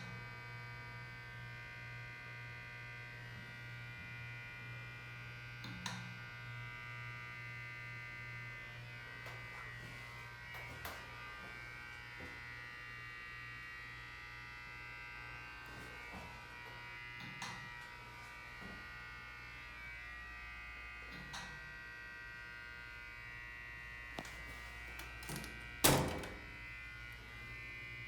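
Steady electrical buzz inside an Otis hydraulic elevator car, with sharp clicks every few seconds that sound like a relay clicking, which the owner suspects comes from behind the car operating panel or on the car top. A much louder thunk comes near the end.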